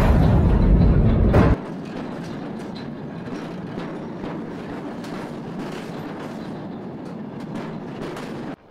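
Freight train wagons rolling past close by, their steel wheels clacking over rail joints above a steady rolling rumble. A louder, deeper rumble fills the first second and a half, then drops off suddenly.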